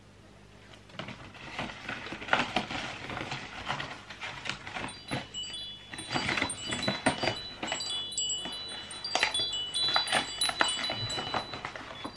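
A stiff paper product tag rustling and crinkling as it is handled, with dense crackling clicks. From about four seconds in, short high tinkling tones ring out over the rustling.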